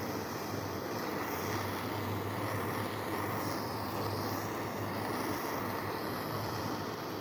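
A steady mechanical drone: a constant low hum under an even noise, without pauses or separate knocks.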